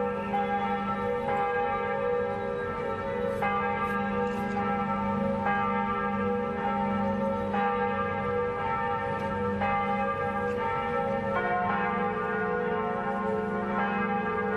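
Church bells ringing in slow strokes about every two seconds, each stroke ringing on under the next, with bells of more than one pitch in turn.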